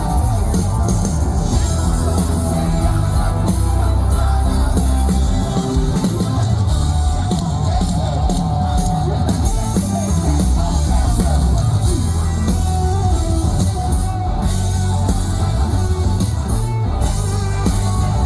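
Loud band music with a steady beat: drum kit, bass and electric guitar playing in a pop-rock style.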